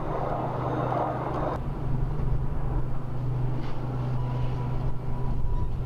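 A vehicle engine running with a steady low hum. A rush of noise over it cuts off suddenly about a second and a half in.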